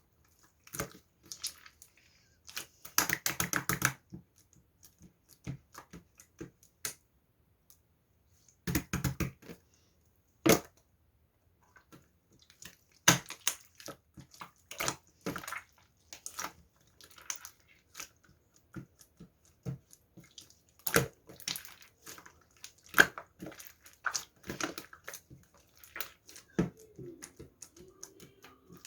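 Irregular close-up clicks and taps with short crunchy crackles. Two longer crackling bursts come about three seconds in and again about nine seconds in.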